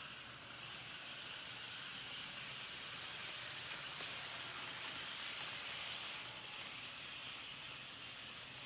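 Athearn SW1500 model switcher locomotive running along its track: a faint, steady hiss of motor and wheels with light scattered ticking.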